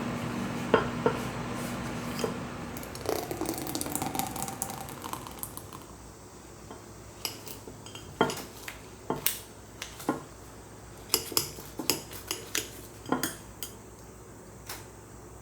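Dishes and cutlery clinking: a dozen or so sharp, irregular clinks in the second half. A steady background noise dies away over the first few seconds.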